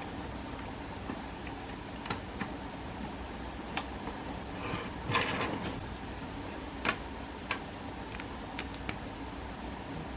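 Faint, irregular light clicks and taps from handling a smartphone and its charging cable, about ten in all, the strongest about five seconds in, over a low steady hum.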